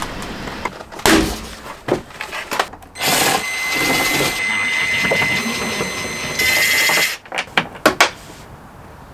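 Cordless drill-driver running for about four seconds, backing out a screw from a van's interior trim panel, with a steady whine that gets louder just before it stops. A sharp crack comes about a second in, and a few sharp clicks follow the drill.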